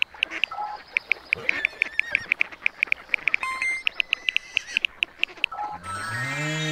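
Cartoon sound effects: a rapid run of short, evenly spaced blips, about four to five a second. Near the end a drawn-out, voice-like sound rises and then falls in pitch.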